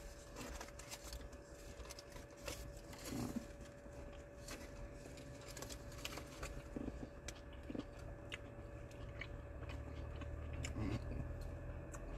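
A person biting and chewing a soft taco close to the microphone, with scattered small clicks and crinkles from the foil wrapper. A faint steady hum runs underneath.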